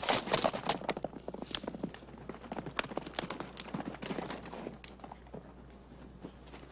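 Horse hooves clip-clopping, loudest at first, then sparser and fading away.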